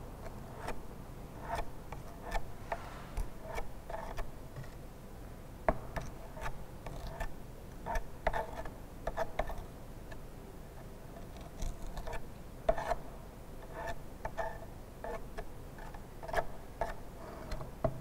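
Steel spatula scraping and tapping against the brass cup of a Casagrande liquid limit device as moist soil paste is spread into it: light metallic clicks at irregular intervals, each with a short ring.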